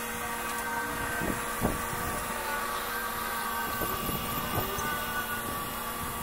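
Swimming pool filter pump's electric motor running with a steady hum while it draws water through the pool vacuum. A few short knocks break through, the loudest about a second and a half in and more around four seconds in.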